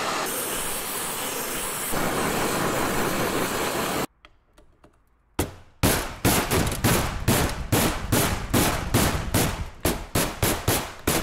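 Gas torch flame hissing steadily as it heats a Honda CR85 crankcase, stopping abruptly about four seconds in. After a short pause, a hammer strikes a steel punch on the case in quick repeated blows, about three to four a second, driving out the seized sleeve inside the case halves.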